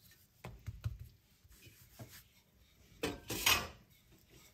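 Hands patting a floured dough ball flat on a silicone mat with a few soft taps, then a wooden rolling pin rubbing over the dough for under a second, about three seconds in.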